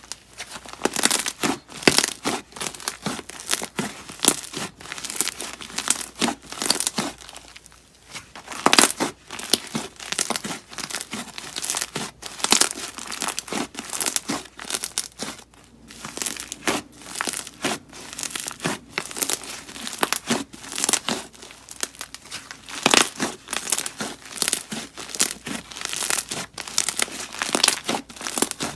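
Slime being kneaded and stretched by hand as clay is mixed into it, giving a dense run of short, irregular clicks and pops, with brief lulls about eight and fifteen seconds in.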